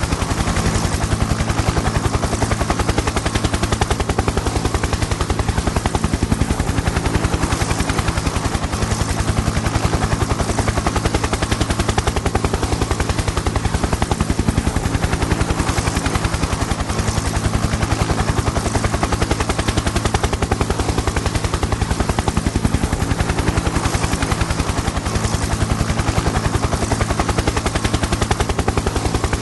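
Helicopter in flight: a rapid, even chop from the rotor blades over a steady engine drone, unchanging throughout.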